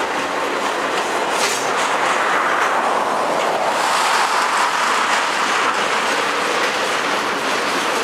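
Double-stack intermodal container cars rolling past close by: a steady rush of steel wheels on rail, with a few sharp clicks of wheels over rail joints.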